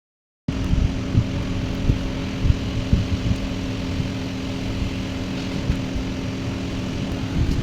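An engine or motor running steadily, with a low rumble and an even hum, starting abruptly about half a second in.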